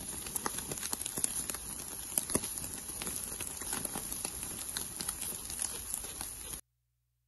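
Chicken kebab skewers grilling over charcoal in a mangal: a steady sizzling hiss with irregular crackling pops from the embers. The sound cuts off suddenly near the end.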